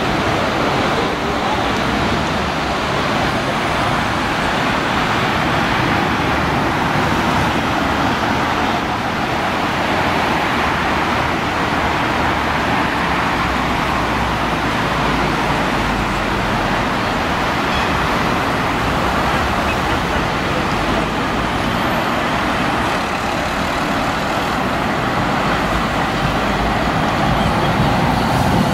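Steady street traffic noise with an articulated tram coming along the tracks toward the listener, growing a little louder near the end as it draws close.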